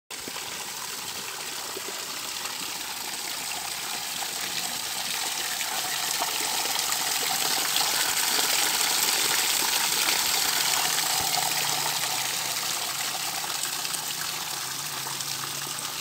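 Small waterfall, a thin stream of water falling down a rock face and splashing onto stones: a steady hiss of splashing water that swells in the middle and eases off toward the end.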